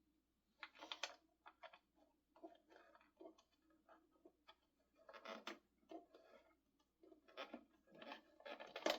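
Faint clicks and scrapes of a twist-in fuse being turned and reseated in the air compressor's fuse holder, in scattered clusters with the loudest click near the end.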